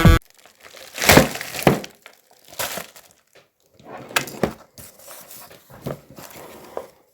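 Irregular crinkling and crunching handling noises, the loudest about a second in, with smaller ones scattered after it.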